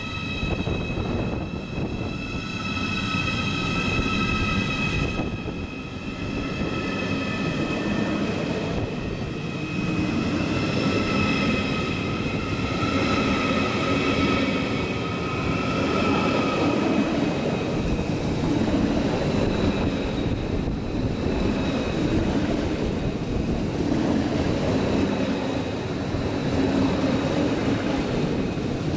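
A Deutsche Bahn ICE train rolls slowly past, its wheels rumbling steadily on the track. Over the first half a high whine made of several even pitches sounds, then fades away.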